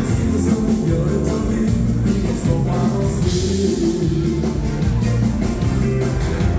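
Live dansband music with a steady rock 'n' roll beat, played for swing dancing.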